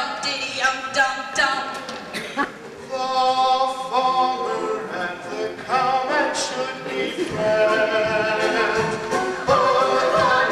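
Stage musical cast singing, growing fuller and louder near the end.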